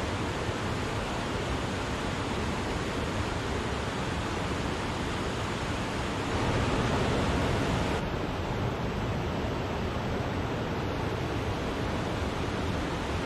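Wachirathan Falls' water pouring and splashing in a steady, dense rush. It swells slightly louder for a couple of seconds about six seconds in.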